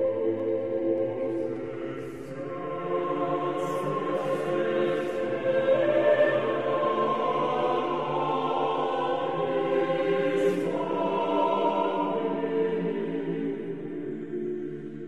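Background choral music: a choir singing slow sacred music in long held chords.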